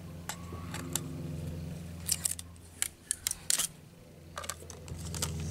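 Scattered sharp clicks and crackles of a plastic iMAX B6AC battery charger being handled while the tape on its case is peeled off.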